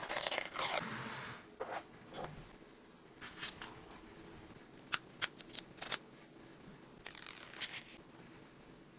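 Packaging being handled during an iPhone 14 Pro Max unboxing: the box's paper pull-tab strip tearing away in the first second, then scattered small sharp clicks and taps, with several close together midway as the phone is lifted out and turned. A brief rustle follows near the end.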